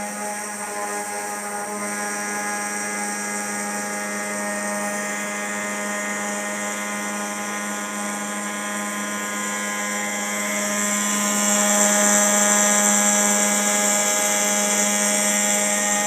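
CNC machine's spindle running at a steady high speed while cutting, a constant pitched whine with a high hiss over it that gets louder about eleven seconds in.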